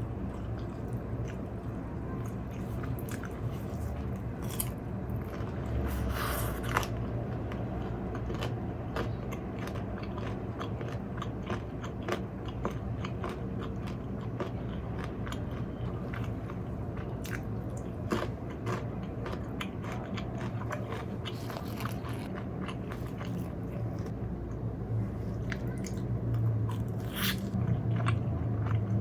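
Close-miked biting, crunching and chewing of crispy fried chicken, a dense run of sharp crunches. A steady low hum runs beneath.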